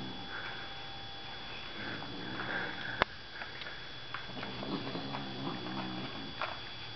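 Abyssinian kitten growling low over its toy, the possessive growl coming and going in rumbling stretches with breathy noise. A single sharp click comes about three seconds in.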